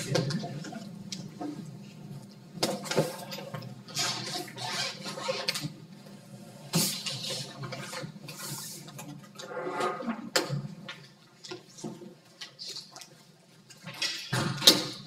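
Irregular rustling and knocking noises, coming in uneven bursts with a few sharp clicks, the loudest near the end.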